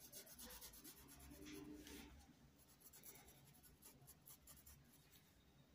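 Faint, scratchy strokes of a paintbrush rubbing fabric paint into a cloth dish towel.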